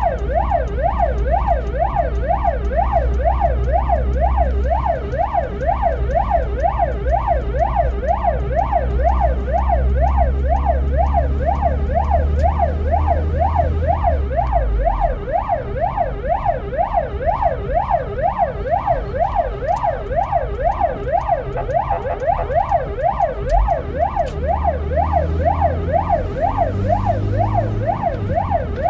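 Ambulance siren wailing in a fast, even up-and-down sweep, heard from inside the moving ambulance's cab over the low rumble of the engine and road, which eases off about halfway and builds again near the end.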